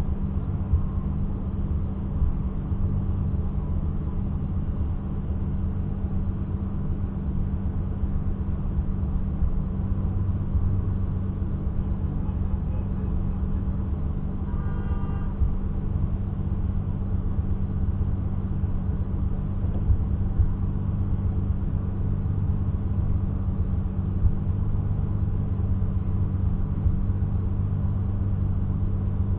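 Turbocharged BMW E30's M20B27 straight-six running at a steady engine speed, a constant low drone with road noise under it.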